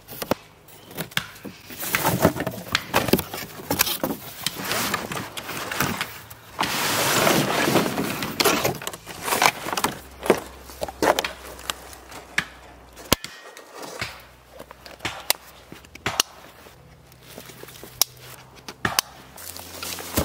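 A cardboard chainsaw box being opened and unpacked: flaps and cardboard inserts rustle, scrape and knock in a string of short clicks and thumps, with a longer stretch of sliding, scraping cardboard about seven seconds in.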